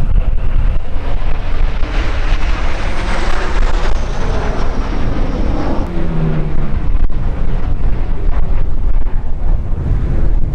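Alpha Jets' twin turbofans roaring past in formation, a high whine falling in pitch between about three and six seconds in as they go by. Heavy wind rumble on the microphone underneath.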